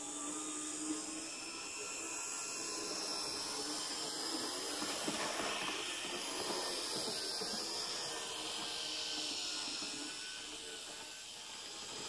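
Z-scale model train running along its track: a steady hissing whir of the tiny motor and wheels that builds up across the middle and eases off near the end.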